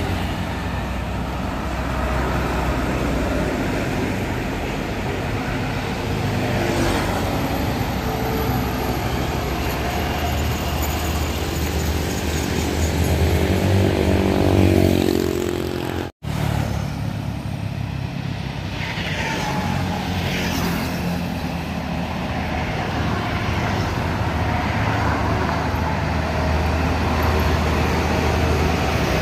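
Steady road traffic: motorcycles and diesel trucks passing one after another, with engine hum and tyre noise swelling as each goes by. The sound breaks off for a moment about halfway through, and near the end a large six-wheeled diesel box truck passes close.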